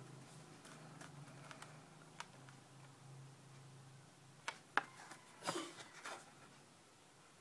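Carded die-cast toy trucks in plastic blister packs being handled: light plastic clicks and ticks, then a few sharper clicks and a short rustle of packaging about four and a half to six seconds in. A faint steady low hum underneath fades out about four seconds in.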